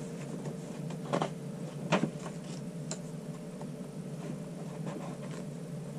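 Paper pages of a handmade journal being turned by hand: two short papery flicks, about a second and two seconds in, with a fainter one soon after, over a faint steady room hum.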